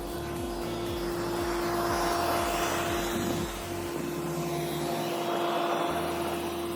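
A steady machine whine with a rushing air noise that swells louder twice, over low pulsing bass notes.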